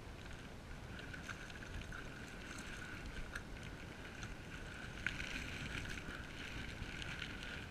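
Open-water ambience around a kayak at sea: a steady wash of water and wind on the microphone, with a faint steady high hum and a few light clicks.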